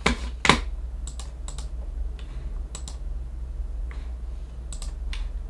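Keys on a computer keyboard clicking irregularly, about a dozen keystrokes, often in quick pairs, the loudest about half a second in, over a steady low hum.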